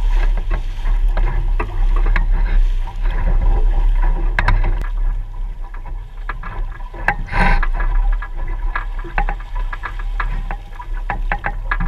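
Water rushing and splashing along the hull of a Mirror sailing dinghy moving fast under sail, with a steady low rumble of wind on the microphone and many small crackling splashes. A brief louder rush of water comes about seven seconds in.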